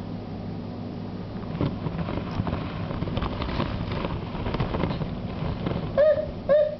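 Light taps and knocks of an infant's hands and an upturned plastic dog bowl on a hard floor, over a steady low hum. Near the end, two short high whimpering calls, the loudest sounds here.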